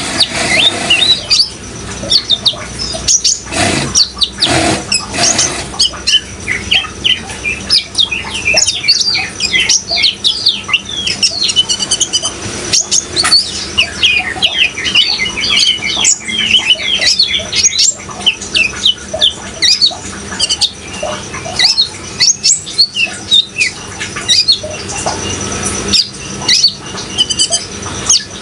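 Kolibri ninja sunbird singing a fast, busy song of high-pitched chirps and twitters without pause, over a steady background sound of running water.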